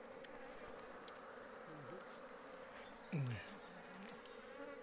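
Steady, high-pitched drone of insects. A brief falling vocal sound from a person comes about three seconds in.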